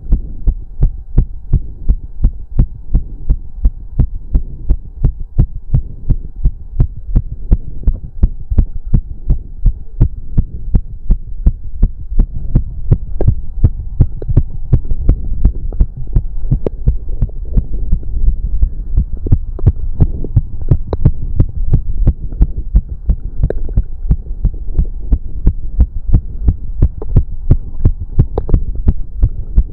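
A man's heart beating fast and evenly, raised by cardio exercise, with a steady hum underneath.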